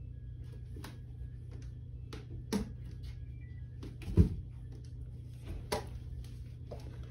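Crutch tips and a foot knocking down onto stair steps: about five separate thuds, the loudest and deepest about four seconds in, over a steady low hum.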